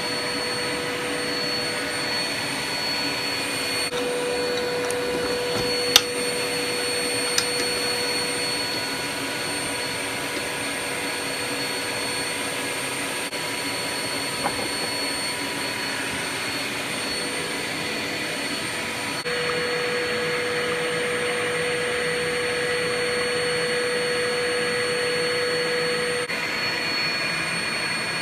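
Workshop dust extractor running steadily, with a few light knocks along the way.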